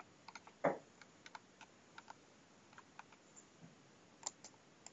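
Faint, irregular clicking of a computer mouse on a desk: a dozen or so single clicks, with one louder short sound just under a second in.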